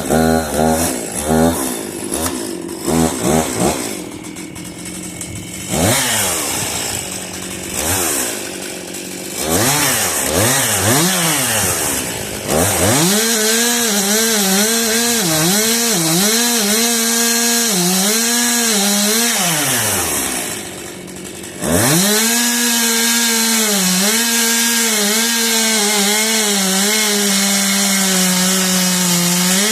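Stihl chainsaw engine being revved in short blips and sweeps, then held at high revs while cutting, its pitch dipping again and again as the chain bites into the wood. About two-thirds of the way through it falls back briefly, then picks up to full revs again.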